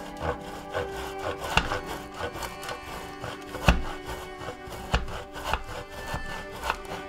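Block of parmesan grated by hand on a stainless steel box grater: repeated rasping strokes, about two a second, one of them louder near the middle.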